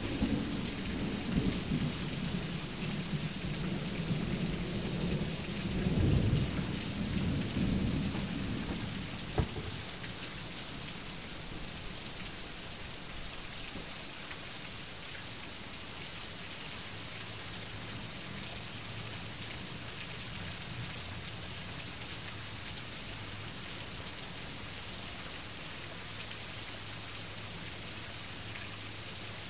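Steady heavy rain with thunder rumbling through the first nine seconds or so, swelling about six seconds in. A single sharp crack comes about nine seconds in, then the rain goes on alone.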